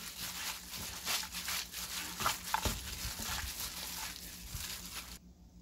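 A hand in a thin plastic glove kneading boiled siraegi (dried radish greens) with soybean paste and dried anchovies in a pan: irregular crinkling of the glove and wet squishing of the greens. It cuts off suddenly about five seconds in.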